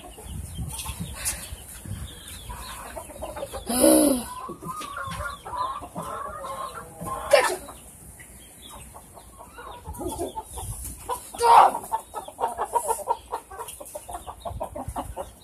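Chickens clucking and calling as they are chased around the run, with a few louder calls about four, seven and eleven seconds in. A low rumble runs underneath.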